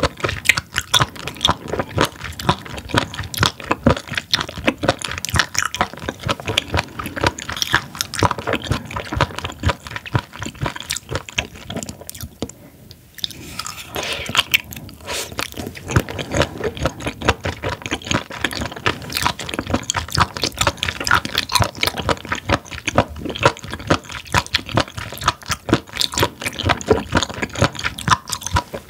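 Close-miked chewing of raw spoon worm (gaebul): a dense run of crunchy, wet clicks and crackles from the firm flesh being bitten and chewed, with a short lull about twelve seconds in.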